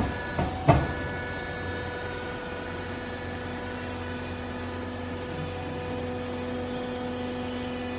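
Hydraulic baler's electric motor and pump running with a steady hum, with two sharp clunks about half a second in and a lower tone joining about three seconds in.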